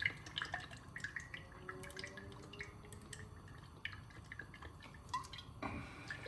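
Olive oil being poured from a bottle into a pan: faint, irregular drip-like glugs and small clicks.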